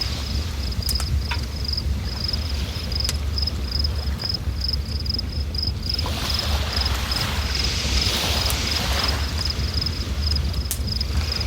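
River ambience: running water hissing with a steady low rumble, swelling louder from about six seconds in. Over it, an insect, cricket-like, chirps a high note in even pulses about three times a second.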